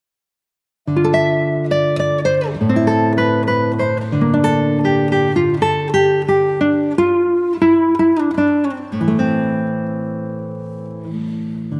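Background music: a guitar-led track of quickly plucked notes over held bass notes, starting about a second in.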